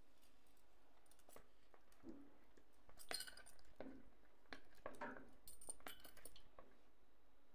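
Faint clinks and taps of metal tongs against an oven's wire rack as pieces of marinated chicken are set down on it, a scatter of short strikes, some with a light ring, over several seconds.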